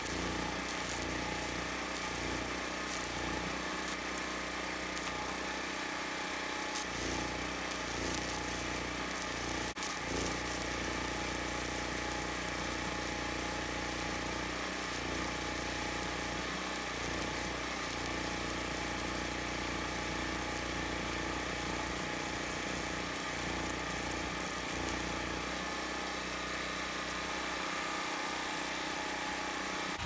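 Stick-welding arc crackling steadily as a bead is run with a rod electrode along a steel purlin joint, over a steady engine hum underneath.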